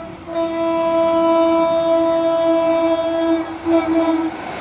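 Horn of an approaching WAP-7 electric locomotive: one long steady blast after a brief break at the start, then a few short toots near the end.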